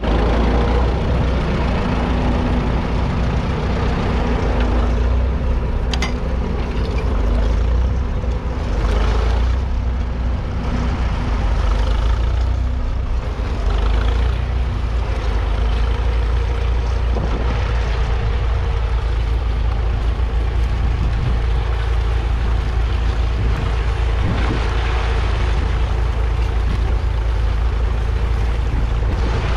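1944 Fordson Model N's 4.4-litre four-cylinder petrol/TVO engine running steadily under load while it pulls a two-furrow trailed plough through the soil.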